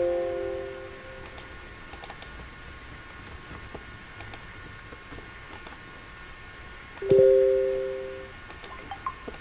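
Computer notification chimes: the tail of a short two-tone alert as a dialog box pops up, then a second two-tone chime about seven seconds in as a message notification appears. Each one fades out over about a second, with faint mouse and keyboard clicks in between.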